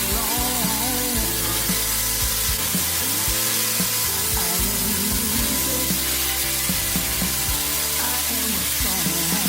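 Background music with a wavering melody, over a steady sizzling hiss.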